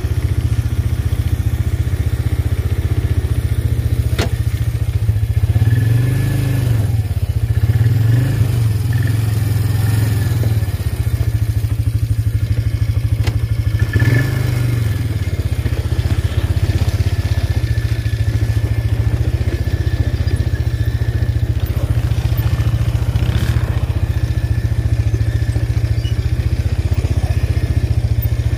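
ATV (quad) engine running at low speed, its pitch rising and falling with the throttle a few times in the first half. A couple of sharp knocks come through, about four seconds in and again near thirteen seconds.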